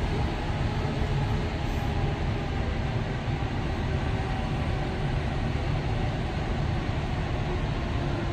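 Jet engines of an Airbus A380 running at taxi idle as the airliner taxis in: a steady rumble with faint steady tones over it.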